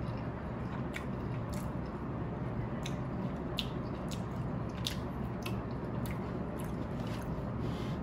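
Close-miked chewing of ramen noodles, with short sharp clicks and smacks about once a second over a steady low background noise.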